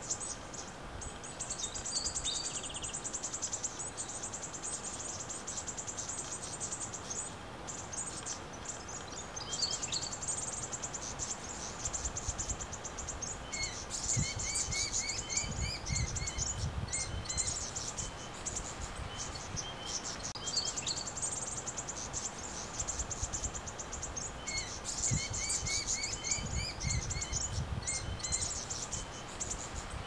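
A steady, fast-pulsing high insect trill, joined by bursts of quick repeated small-bird chirps about halfway through and again near the end, with a low rumble at the same moments.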